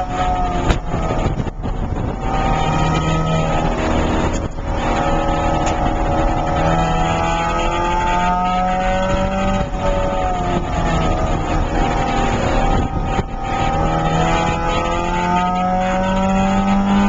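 Porsche 968's 3.0-litre four-cylinder engine heard from inside the cabin, driven hard on track. Its note climbs in pitch again and again, each climb broken off by a short drop before it pulls up once more.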